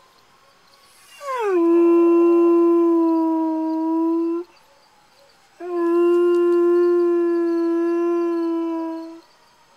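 Foxhound howling in answer to distant sirens: two long howls, the first sliding down in pitch at its start and then holding steady, the second held level for about three and a half seconds.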